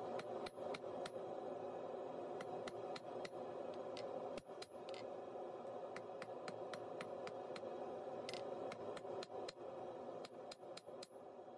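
A hand hammer striking hot steel bar stock on an anvil, irregular blows at about two a second with short pauses, a few giving a brief high ring. A steady rushing noise runs underneath.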